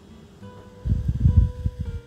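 Background acoustic guitar music with held, strummed notes. A loud low rumble, the loudest sound here, starts about a second in and lasts about a second.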